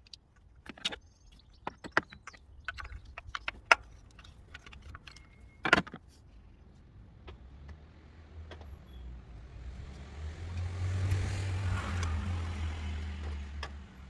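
Metal clinks and taps of hand tools and spark plugs being handled, then in the second half a passing vehicle's rumble that swells, peaks and eases off.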